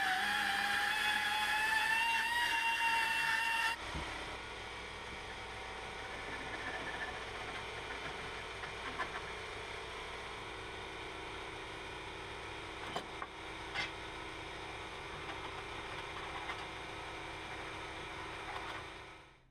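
Die grinder running against a steel repair panel, a steady high whine that drifts slightly up in pitch and stops abruptly about four seconds in. After it, a quieter steady background with a few light scrapes as the edge of the cut hole is filed by hand.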